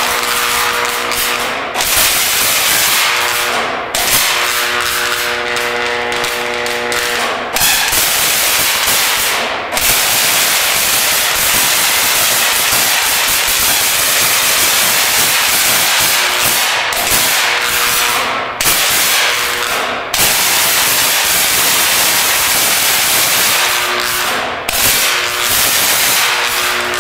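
High-voltage DC arc (75,000 volts at 1 amp) striking a glass candle holder: a loud, continuous crackling hiss, at times with a buzzing hum. The arc breaks off for a moment several times and restrikes.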